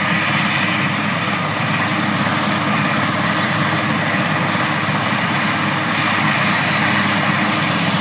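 Eurocopter AS332 Super Puma helicopter running on the ground with its rotor turning: the steady whine and rush of its twin turboshaft engines over a fast, even rotor beat.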